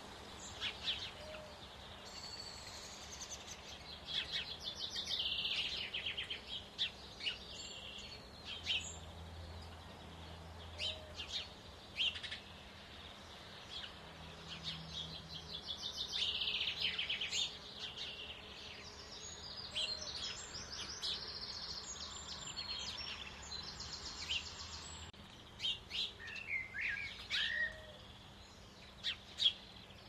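Small songbirds singing and calling: fast trilled phrases repeating every few seconds, mixed with short sharp chirps.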